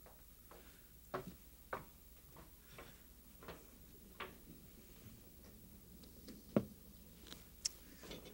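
Faint footsteps and small knocks at irregular spacing, with one heavier thump late on, over a low steady studio hum.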